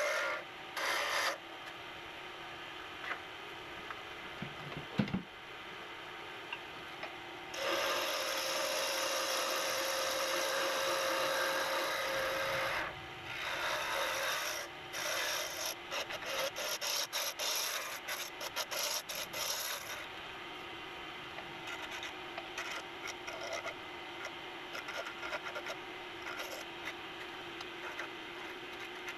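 Wood lathe spinning a purpleheart pen blank while a hand-held turning tool cuts it, played back sped up. The tool's scraping hiss comes in passes over the lathe's steady hum: a brief one at the start, a long cut from about a quarter of the way in, then a run of short choppy cuts, fading to lighter ones near the end.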